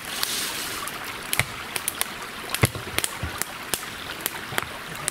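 Raindrops and drips tapping on the vehicle's windshield and roof in sharp, irregular ticks over a steady hiss of rain.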